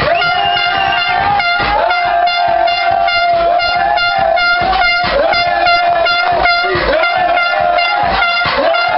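A horn blown in long held notes, each dipping briefly in pitch about every second and a half, over steady rhythmic clapping or stamping from a dancing crowd.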